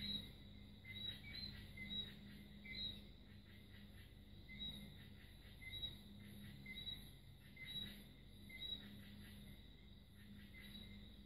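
Felt-tip marker squeaking and scratching on paper in short, uneven strokes while filling in a black area, over a faint steady low hum.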